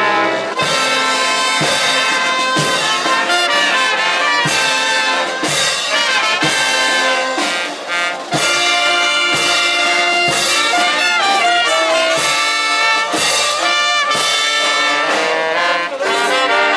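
Brass marching band with saxophones and trumpets playing a march. A steady beat lands about once a second.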